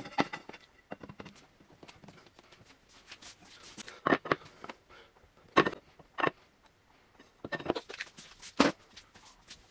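A handful of separate sharp knocks and clunks of hand work on a workbench: an aluminium plate being shifted into place on its freshly glued plywood base, then concrete blocks and a steel bar set down on top as weights to press it while the glue sets.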